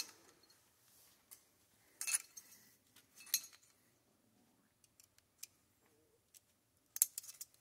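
Small steel rifle parts clicking and clinking as an AR-15 barrel's delta ring assembly is taken apart: a few scattered light clinks, then a quick cluster of sharp clicks near the end.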